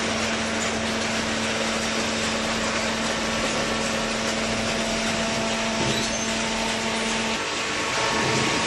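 Auto-tie baler running while baling cardboard: a steady machine noise with a steady hum that cuts out about seven seconds in.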